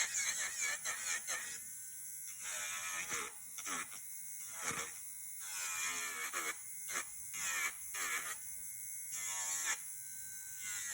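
AIRSEE electric nail drill running, its motor whine bending and dipping in short repeated passes as the bit is worked against a fingernail to file off the artificial nail.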